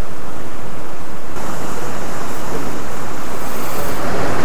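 Heavy sea surf breaking and churning against the rocks below, a steady rushing hiss that swells about a second and a half in as a wave surges.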